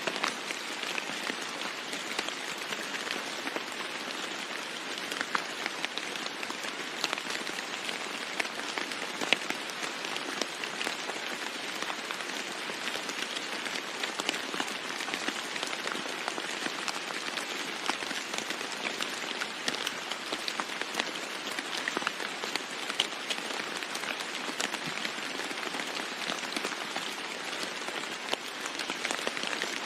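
Steady rain falling on a roof, with many separate drops ticking sharply against it.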